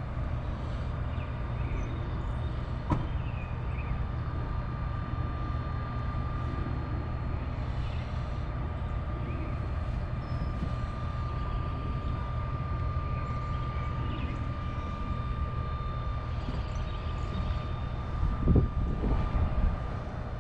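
A vehicle engine running steadily with a low rumble and a thin, steady high whine, a sharp knock about three seconds in and a few louder thumps near the end.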